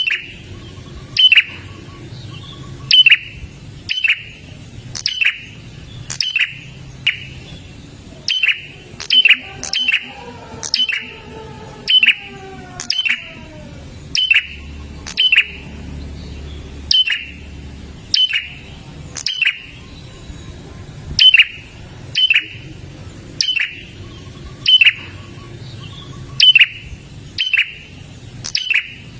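Prinia (prenjak) calling: a loud, sharp, down-slurred note repeated steadily, a little more than once a second.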